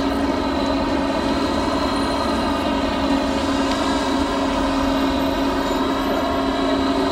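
Motorboat engine running steadily at speed, an unbroken pitched drone that holds level throughout.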